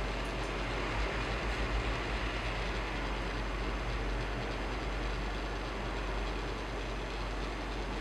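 Steady rushing noise with a low rumble.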